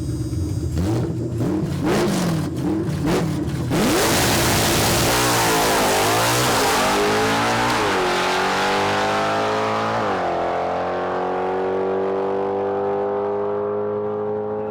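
A drag racing car revving with sharp pops at the line, then launching hard about four seconds in. The engine pitch climbs through several gear shifts as the car accelerates down the strip, fading as it pulls away.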